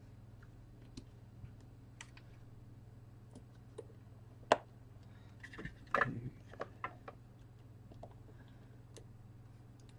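Scattered small clicks and taps of tools and parts being handled on a repair bench, loudest about halfway through with a quick cluster just after, over a steady low hum.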